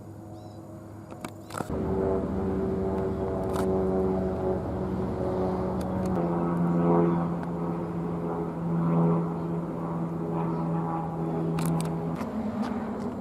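A train passing close by: a loud steady pitched drone starts suddenly about two seconds in, drops in pitch about halfway through, and eases off near the end, with a few sharp clicks.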